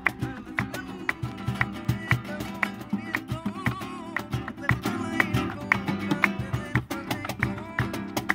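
Flamenco played on acoustic guitars, strummed and plucked, with hand clapping (palmas) keeping a steady beat of about two claps a second.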